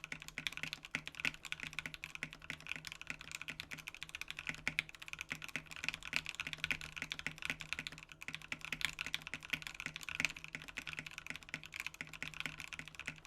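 Continuous fast typing on a Satisfaction75 mechanical keyboard with lubed Banana Split linear switches, PBT keycaps and an FR4 plate with no foam inside: a dense, even stream of key clacks, heard faintly from a microphone not aimed at the board.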